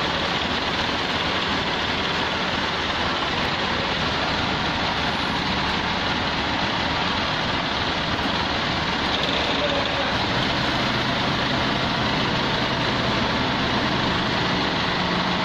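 Forklift running steadily while carrying steel drums on its drum-grab attachment, a low steady hum joining about two-thirds of the way through.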